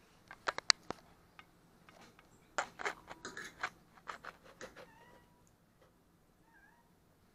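Metal cutlery clinking and scraping against a ceramic plate during a meal: a few sharp ringing clinks in the first second, then a quicker run of clatter a couple of seconds in.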